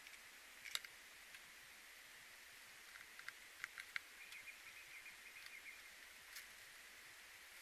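Faint outdoor ambience: a steady high hiss with a few brief, faint chirps and clicks, clustered about three to four seconds in.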